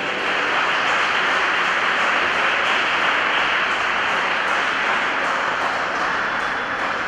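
Audience applauding, a steady wash of clapping that eases slightly near the end.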